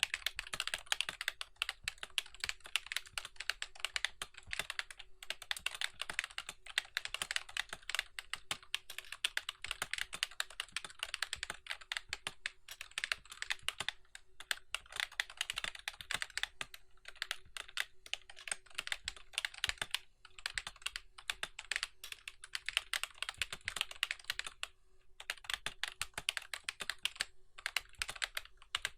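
Continuous fast typing on a RAKK MUA semi-mechanical keyboard: rapid keystroke clicks running together, broken by a few brief pauses.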